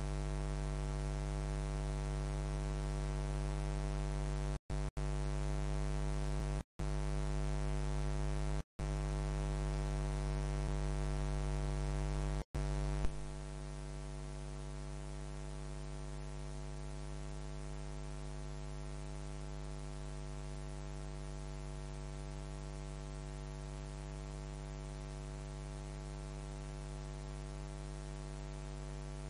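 Steady electrical mains hum with many overtones on the audio line. It cuts out completely a few times for a split second in the first half, then a click about 13 seconds in, after which the hum carries on slightly quieter.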